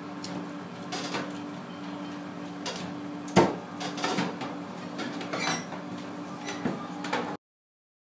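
Knocks and clatter in a stainless steel kitchen sink as a large pike conger is handled, over a steady low hum, with one loud sharp knock about three and a half seconds in. The sound cuts off suddenly near the end.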